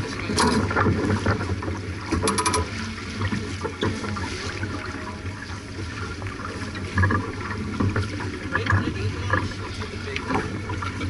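Water rushing and splashing along the hull of a J/24 sailboat under way, with wind and scattered knocks of gear aboard, and a short rattle about two seconds in.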